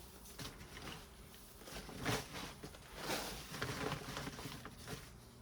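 Hands digging through loose soil in a potato grow bag: several soft rustling scrapes about a second apart.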